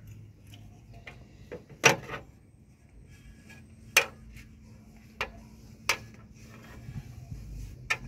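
A few separate sharp clicks and knocks, the loudest about two seconds in, as a rag-covered hand wipes out an engine's cylinder bore.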